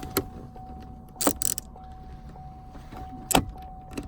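Sharp metallic clicks and taps of a T20 star-bit driver and small parts working the screw at the base of the shifter: one just after the start, a short cluster about a second in, and another near the end. A faint steady high tone runs underneath.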